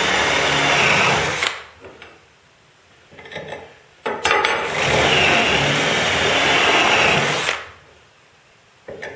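Cordless drill driving a step drill bit through steel pipe to enlarge a hole. There are two runs of drilling: the first stops about a second and a half in, and the second runs from about four seconds in to about seven and a half, with a few light metal clinks between them.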